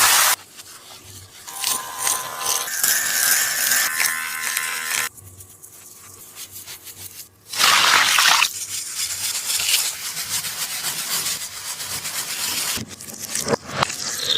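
Taba squishy made of tape being squeezed and rubbed, crinkling and scraping in two long stretches with a quieter pause between them.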